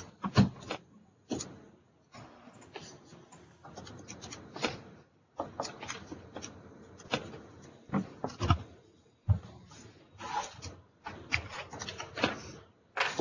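Scattered knocks, bumps and rustling, with a few louder thumps among them: the handling and movement noise of people working at desks.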